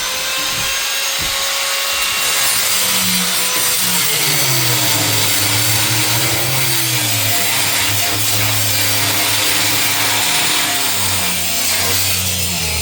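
Electric power tool cutting into a steel desk, running continuously and loud. Its motor pitch drops about four seconds in as it bogs down under load, then holds lower.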